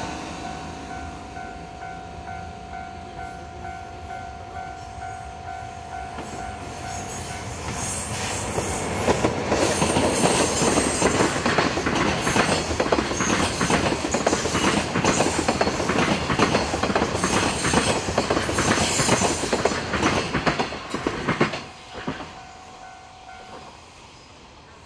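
Japanese railway level-crossing warning bell ringing, then a train passing over the crossing for about thirteen seconds, its wheels clattering over the rail joints. After the train clears, the bell rings briefly again and stops.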